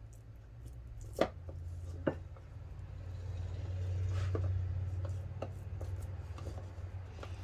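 Two sharp knocks about a second apart, then a few lighter taps, from minced meat being shaped into cutlets on the kitchen counter, over a steady low hum.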